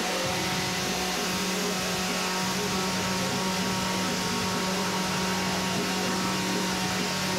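Two-stroke chainsaw running steadily at high speed, holding an even pitch with no clear rise or fall.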